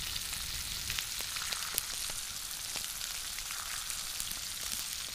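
Food sizzling in a frying pan over a campfire: a steady frying hiss with scattered small pops and crackles.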